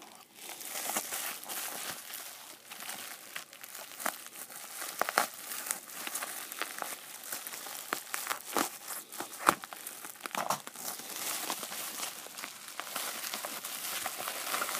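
Plastic bubble wrap crinkling and rustling as it is handled and unwrapped by hand, with many scattered sharp crackles and one louder snap about two-thirds of the way through.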